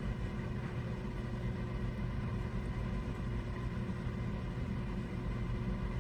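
Steady low machine hum at a fixed pitch, running unchanged with no distinct clicks or knocks.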